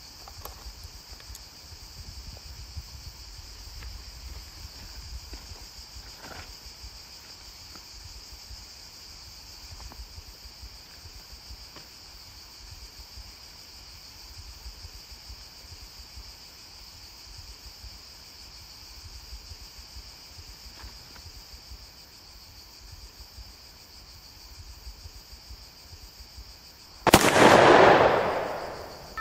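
Crickets chirping steadily, then near the end a single loud gunshot that rings out and dies away over about two seconds.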